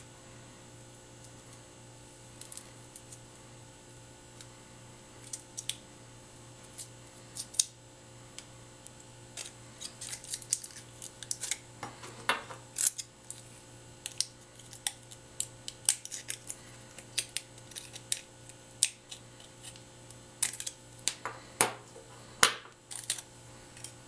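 Thin foil cable shield being peeled, crinkled and snipped off an HDMI cable with small cutters: irregular sharp clicks and snips, denser in the second half, over a faint steady hum.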